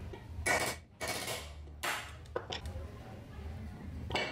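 Metal parts of a disassembled electric chainsaw being handled and set down: a few clattering, scraping bursts in the first two seconds, a couple of short clinks, and another clink near the end.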